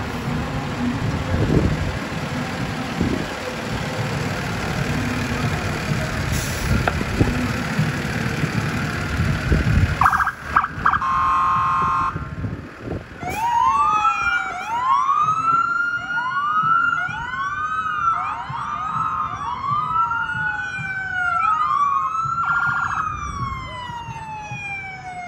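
An emergency vehicle's siren. First comes a steady rumbling noise, then a horn blast of about two seconds just after ten seconds in. From about thirteen seconds the electronic siren wails, its pitch sweeping up and down again and again, with another short horn blast near the end.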